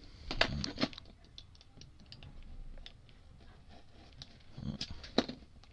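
A cardboard jersey trading card being picked at and pried apart by hand, giving small clicks and scratches. There are two louder bursts of crackling, one near the start and one about three-quarters of the way through.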